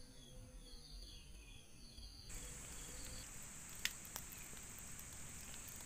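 Insects chirping in a regular repeating pattern, which changes abruptly about two seconds in to a steady, louder high-pitched insect drone. Two sharp clicks come in the middle of the drone.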